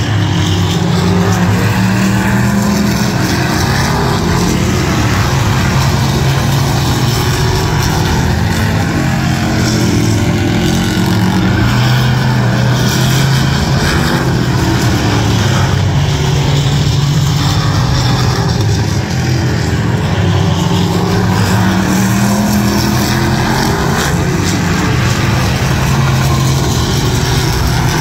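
Engines of several stock cars racing together. The loud, steady mix of engine notes swells and fades as the cars pass.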